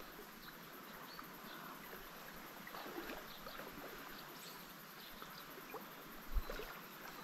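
Faint river water trickling and lapping, with many small scattered ticks, and one soft low thump about six seconds in.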